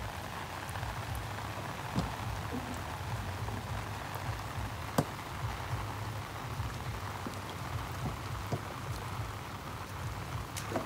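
Steady rain falling on grass and water, with a few sharp single drops hitting close by, about two seconds and five seconds in.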